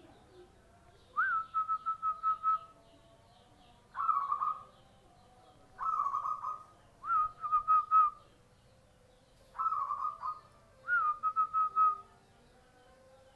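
Zebra dove (perkutut) cooing: about six phrases, each a quick, clear run of short staccato notes, separated by brief pauses.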